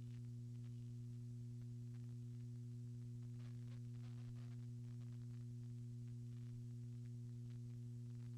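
Steady low electrical hum, a mains buzz in the recording with a few evenly spaced overtones, unchanging throughout, with only faint indistinct noises above it now and then.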